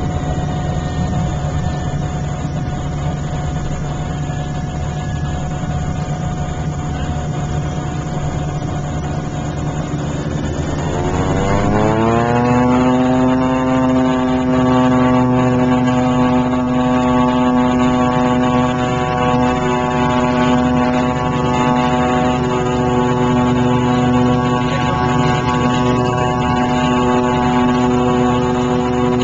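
Small propeller plane's engine heard from the cabin, running at a low steady speed, then speeding up about ten seconds in to a high, steady, louder drone that holds until the end, as power is brought up for takeoff.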